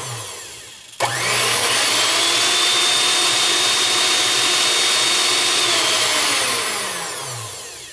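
VonShef electric hand mixer running on its high speed setting, about 1100 RPM: its motor and gears start sharply about a second in and run steadily with a high whine, then it is switched off and winds down, the pitch falling as it coasts to a stop near the end.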